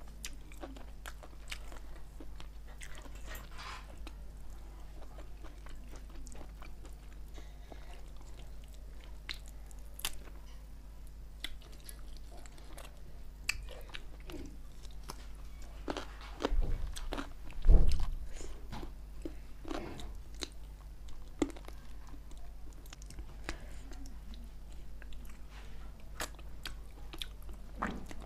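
Close-miked eating of spicy chicken wings and thighs: biting and chewing with many small wet mouth clicks. A loud low thump about two-thirds of the way through, over a steady low electrical hum.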